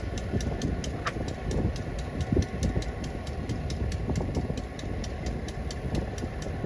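Diesel locomotive engine idling with a steady low rumble, with a faint rapid ticking of about five a second over it.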